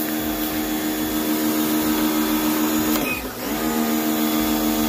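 Black + Decker electric pressure washer's motor and pump running with a steady hum over the hiss of the water spray. About three seconds in, the motor winds down and cuts out, then starts up again about half a second later.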